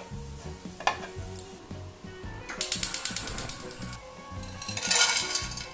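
Rapid, evenly spaced clicking, about ten clicks a second for just over a second, like a gas hob's igniter sparking under an empty frying pan. Near the end comes a swelling dry rustle and rattle, as of dried anchovies tipped into the pan.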